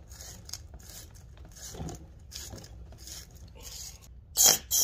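A stiff plumbing-fitting brush scrubbing the threads of a diesel heater part in short, repeated strokes, about two a second. Near the end a short, loud hiss starts suddenly.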